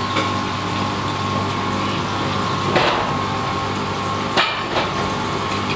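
A machine running with a steady hum, with a few sharp knocks about three, four and a half and five seconds in.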